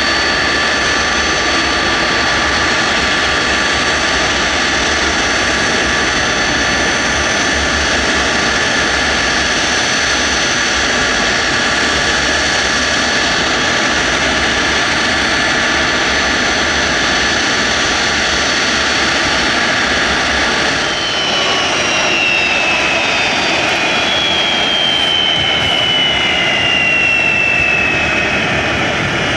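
Jet engines of NASA's SOFIA Boeing 747SP flying past low: a steady loud jet noise with high whining tones. About two-thirds of the way through, the whine starts falling steadily in pitch as the aircraft passes by.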